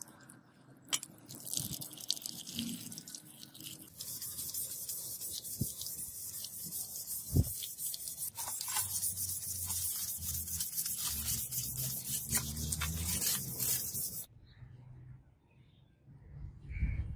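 Water pouring onto a steel sword blade while it is scrubbed with a hand brush, a steady hissing scrubbing noise with one sharp knock partway through; it cuts off suddenly near the end.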